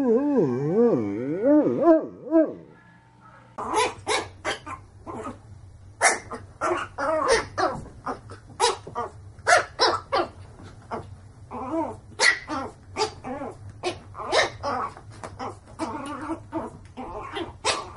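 A dog barking over and over in short, sharp barks, about two a second. It is preceded by a wavering, sliding pitched sound that stops about two and a half seconds in.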